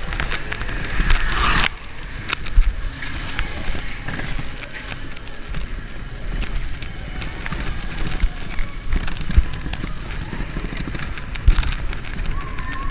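Space Mountain roller coaster train running in the dark: a steady low rumble of wheels on the track with constant rattling and clattering. There is a louder rushing burst about a second in.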